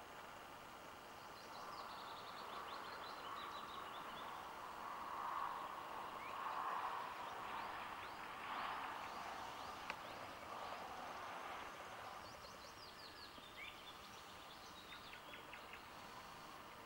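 Songbirds singing: a falling trill about two seconds in and again near the end, with scattered chirps between. Underneath is a faint hiss that swells in the middle.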